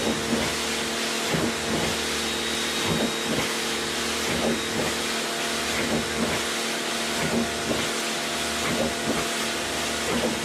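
Bossman BPC-4830 electric pressure washer running: a steady motor hum under the hiss of its water jet spraying.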